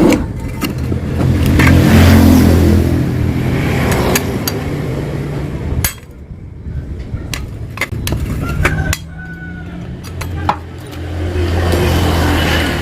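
Yamaha RX-King's two-stroke single-cylinder engine running through its hollowed-out exhaust, which has been reworked for a crisp, growling 'garing ngorok' tone. The revs rise, fall off about six seconds in, and rise again near the end, with sharp clicks scattered through.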